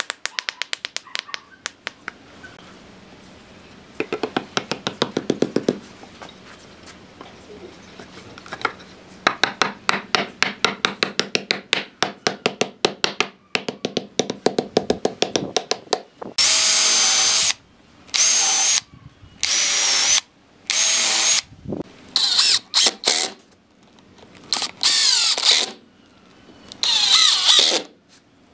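A hammer tapping rapidly on wood in runs of several seconds, about five blows a second. From about halfway through, a cordless drill bores into wooden boards in short whining bursts of about a second each.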